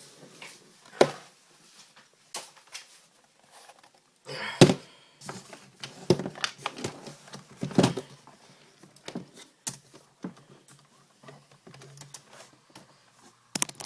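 A laptop being handled: scattered clicks and taps, with a few heavier thumps, the loudest about four and a half seconds in.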